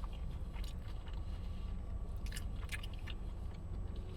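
Close-up chewing of a sauced chicken wing, with wet mouth clicks and smacks, several in quick succession about two and a half seconds in, over a steady low hum.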